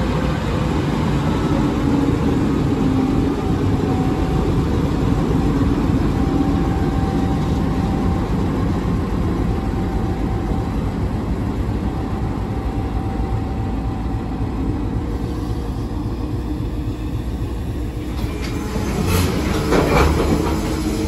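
Operail diesel freight locomotive passing close by with its engine running steadily, followed by open-top freight wagons rolling past. Wheels clatter over the rails, with a cluster of loud clacks near the end.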